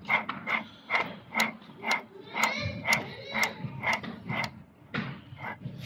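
Sharp metallic clicks, about two a second, from parts of a Hino 7D inline diesel injection pump being worked by hand.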